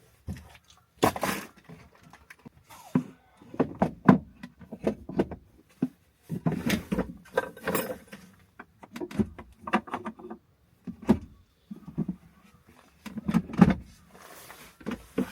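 Irregular knocks and clatters of objects being handled, a few sharp hits every second or so with short gaps between.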